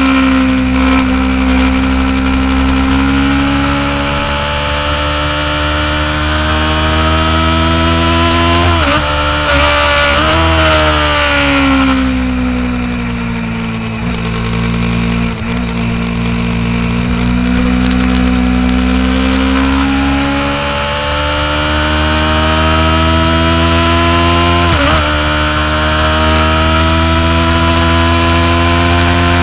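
Kawasaki Ninja 250R's parallel-twin engine running hard at high revs on track, heard from the bike itself. The engine note drifts slowly up and down, with brief sharp dips about a third of the way in and again near the end.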